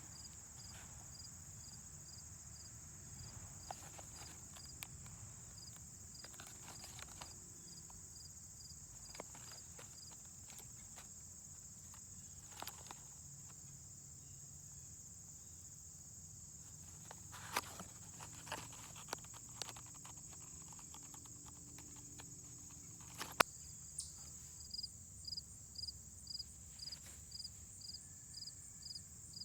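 Quiet outdoor ambience with a steady high insect drone. A few faint scattered clicks and knocks come through it, and in the last few seconds a high chirp repeats about twice a second.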